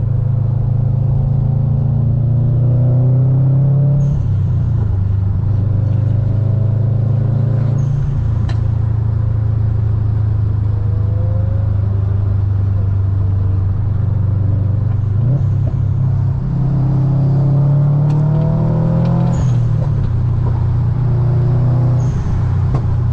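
Turbocharged Subaru flat-four (boxer) engine pulling hard through the gears, its low rumble rising in pitch and dropping back at each of about five gear changes.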